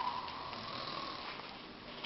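A man snoring in his sleep: one drawn-out snore that trails off over about a second and a half.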